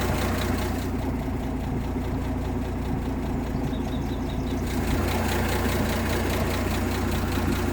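1958 AMC Rambler Super engine idling steadily on a Weber carburettor, running fast at about 1,000 rpm where its owner expects about 800.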